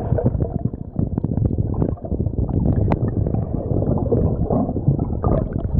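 Muffled underwater water noise with bubbles gurgling and crackling, as heard by a camera submerged beside a swimmer.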